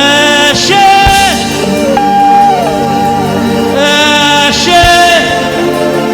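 Gospel singing with instrumental accompaniment: a voice holds long notes and slides between them over a steady band backing.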